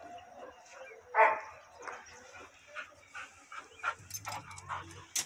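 A pit bull gives one loud, short, sharp yelp about a second in, then several shorter yelps.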